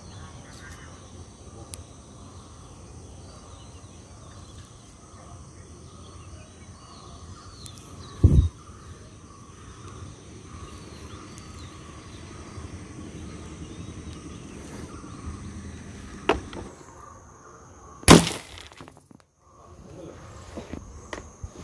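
A homemade rubber-band spear gun fires its fishing arrow with one loud, sharp snap about eighteen seconds in. Before it comes a faint steady high tone over low background, with a dull thump about eight seconds in and a smaller click about sixteen seconds in.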